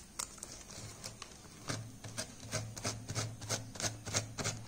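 Short scratchy rasps of fine sandpaper pulled along the rim of a melamine plate, cutting away the edge of a thin decoupage paper napkin, about two to three strokes a second and quickening after the first couple of seconds.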